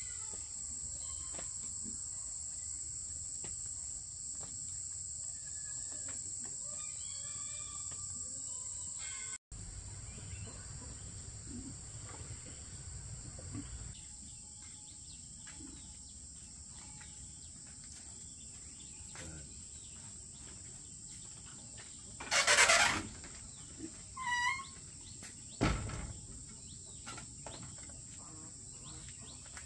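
Steady high-pitched chorus of insects, with a few short bird calls over it. About three-quarters of the way through comes a brief loud noise, followed by two smaller sounds.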